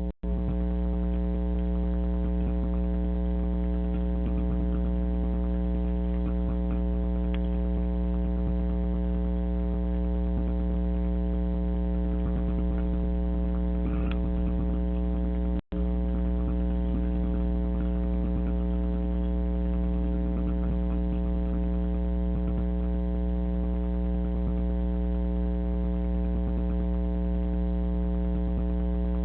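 Steady electrical hum with many overtones, unchanging in pitch and loudness, cutting out for an instant about halfway through.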